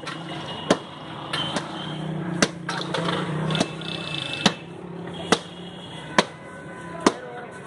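Sharp knocks, like chopping or hammering, repeating steadily about once a second over a low steady hum and faint market murmur.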